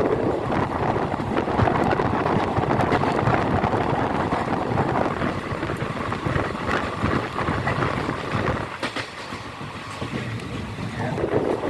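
Express train running at speed: a steady rumble of wheels on rail with a rattling clickety-clack, easing a little about nine seconds in before building again.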